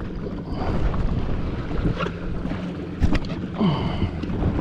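Yamaha WaveRunner jet ski engine running at idle, a steady low hum, with wind buffeting the microphone and water noise; a sharp knock about three seconds in.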